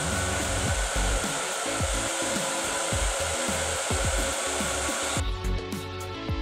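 Hair dryer running steadily with a noisy whine, cutting off suddenly about five seconds in, over background music with a low beat.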